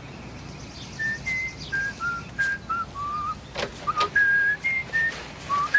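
A person whistling a tune: a run of short, clear notes that hop up and down in pitch, with a few sharp clicks midway.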